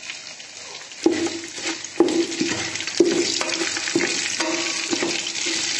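Whole spices sizzling in hot oil in a large metal pot, the sizzle swelling about a second in. A utensil knocks against the pot about once a second as they are stirred, each knock with a short ring.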